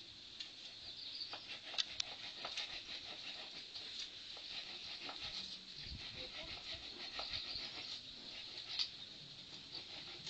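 Scattered light clicks and taps at an uneven pace, two sharper ones about two seconds in and another near the end, over a faint steady high chirping.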